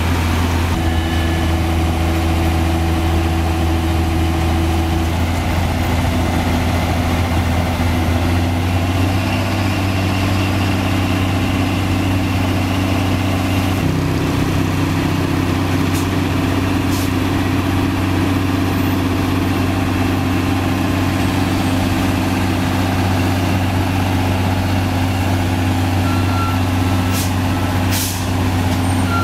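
Heavy diesel truck engine idling steadily, a low, even drone. A few short clicks and brief high beeps come near the end.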